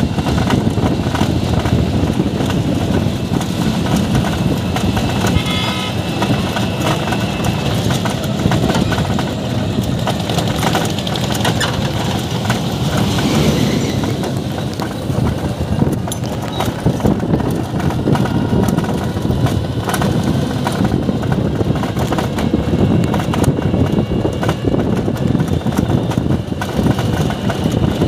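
Running noise of a moving auto-rickshaw heard from on board: a steady rumble of wind and road, with scattered small knocks and rattles.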